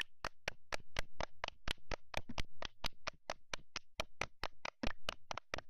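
A quick, uneven run of sharp taps or claps, about six a second, over a faint low hum.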